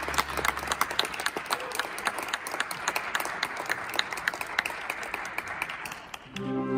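Applause from a small theater audience, individual claps distinct. A held low note from the end of the music fades out about a second in, the clapping thins out near the end, and new music begins just before it ends.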